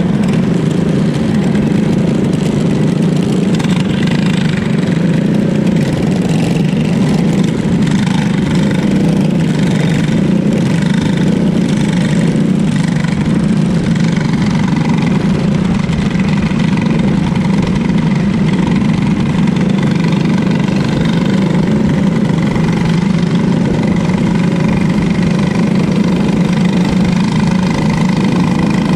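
Briggs & Stratton four-stroke kart engine running steadily at low speed, heard from close behind the seat.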